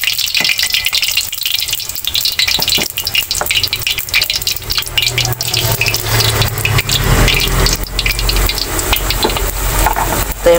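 Flour-battered tempeh frying in hot oil in a wok: a steady crackling sizzle full of small pops. A low hum joins about six seconds in.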